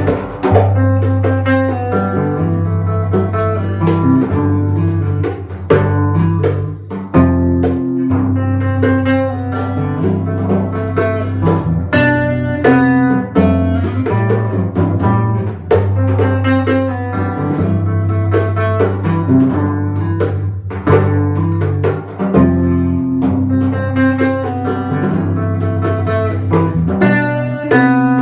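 Band music without words: guitar over low bowed and plucked strings, with a steady bass line and a drum kit keeping time.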